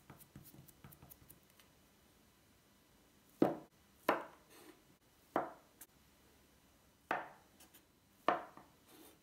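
Chef's knife chopping down through a soft pressed sweet-dough piece and striking the wooden tabletop: five sharp chops at uneven spacing, after a few faint light taps at the start.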